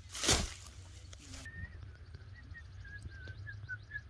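A bare foot steps down onto the grassy bank right beside the microphone, making a brief, loud rustling thump. After that, faint high bird chirps repeat in the background.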